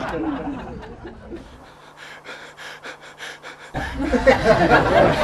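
Laughing and snickering in short breathy bursts, dying down over a steady low hum. About three and a half seconds in, the sound cuts suddenly to a louder, noisy stretch.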